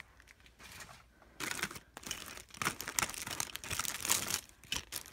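Plastic packaging crinkling and rustling as items are handled, starting about a second and a half in, in quick irregular crackles.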